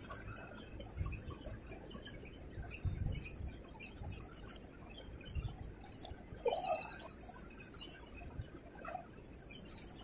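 Insects chirping: a steady high-pitched trill with a second, pulsing trill repeating in bursts about a second long every second or two, over faint low bumps.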